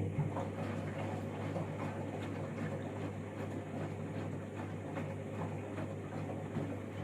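Candy washing machine running an empty main wash: a steady low hum over a noisy swish, with faint ticks.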